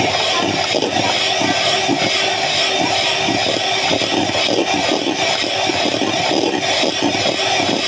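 Electric hand mixer running steadily with a constant motor hum, its beaters whipping cream in a stainless steel bowl.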